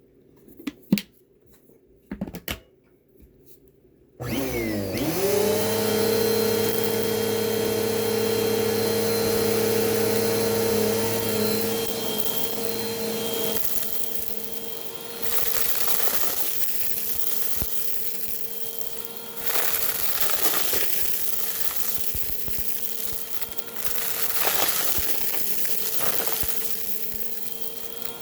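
A few clicks, then about four seconds in a Bissell vacuum cleaner is switched on: the motor spins up quickly with a rising whine and settles into a steady running hum. The level and tone shift a few times while it keeps running.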